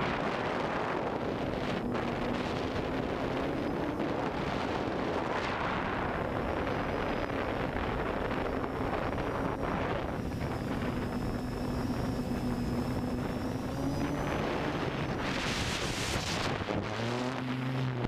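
An FPV multirotor drone's motors and propellers humming steadily, heard from the onboard camera with heavy wind rushing over the microphone. Near the end the hum swoops up and down in pitch several times as the throttle changes.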